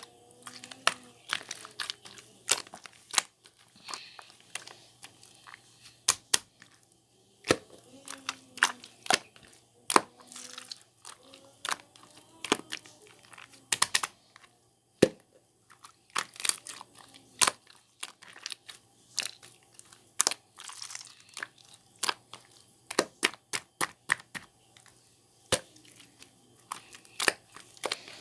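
Slime being squeezed, stretched and folded by hand, giving off irregular sharp clicks and pops as trapped air pockets burst.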